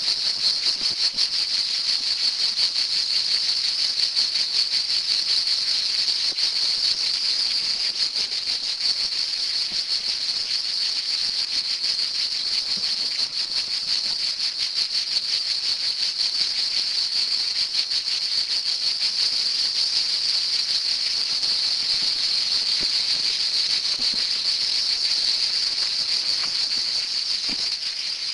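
Dense insect chorus: a loud, steady, high shrill with a fast pulsing grain, easing off slightly at the very end.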